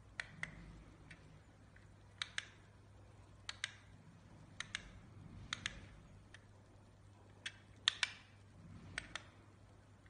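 Buttons on a small plastic remote control for wireless LED puck lights being clicked about ten times, roughly once a second, most presses a quick double click of press and release. Each press switches or dims the lights.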